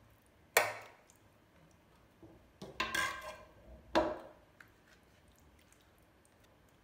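A serving spoon clinking and scraping against the pot and baking dish as meat sauce is ladled onto lasagna sheets: three short clatters, about half a second in, around three seconds in and at four seconds, with quiet between.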